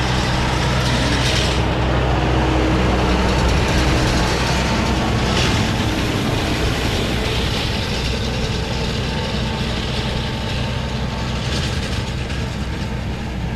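John Deere tractor engine running steadily while pulling a hay baler through the field, a constant low hum with machinery clatter over it. It eases off slightly about halfway through.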